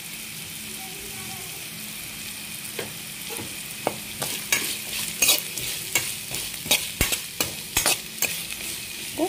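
Sliced onions sizzling in hot oil in a pan. From about three seconds in, a steel spatula stirs them, with repeated scrapes and clicks against the pan.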